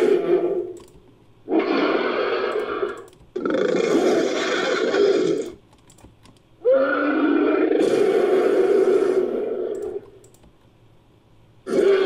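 Made-up creature roars and growls for the Genderuwo, a hairy ape-like demon, mixed from ape and monster sound effects. A string of throaty calls, each about one to three seconds long, with short gaps between them.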